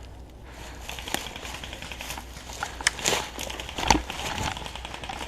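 Crunching and rustling through dry forest leaves and twigs, with a few sharp clicks and snaps about 1, 3 and 4 seconds in.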